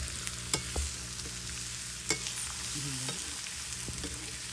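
Meat and vegetables sizzling steadily as they are stir-fried in a large iron wok (kadai) over a wood fire. A steel ladle stirs and scrapes the pan, with sharp clicks about half a second and two seconds in.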